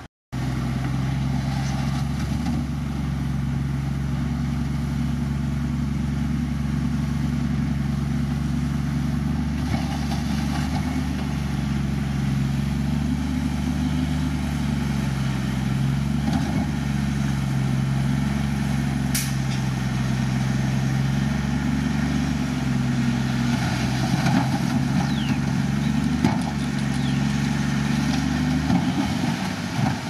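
Diesel engine of heavy earthmoving equipment running steadily at a constant speed. It starts abruptly just after the beginning and drops away near the end.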